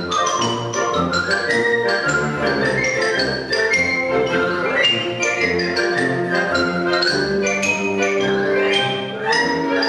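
Concert band of woodwinds and brass playing a brisk tune, full of quick running notes that climb and fall.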